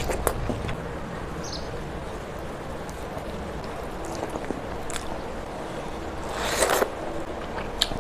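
Close-miked eating sounds: chewing and mouth noises as rice and curry are eaten by hand, with scattered small clicks and one louder, noisy burst about two-thirds of the way through.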